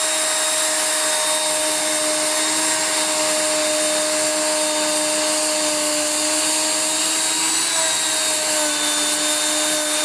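Parkside POF 1200 C2 electric plunge router running at speed with a steady high whine while routing out the hollow of a small wooden box. Its pitch dips slightly about three-quarters of the way through, then holds steady.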